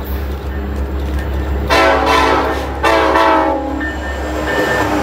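Approaching Metra commuter train's locomotive horn sounding two long blasts back to back, a chord of several tones, over the low rumble of the train.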